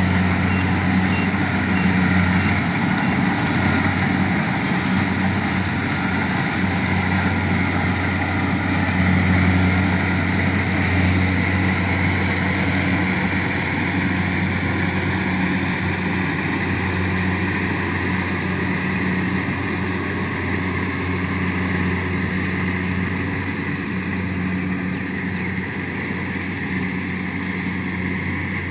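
A rice harvesting machine's engine running steadily, a continuous low hum with the whirr and rattle of the machinery over it.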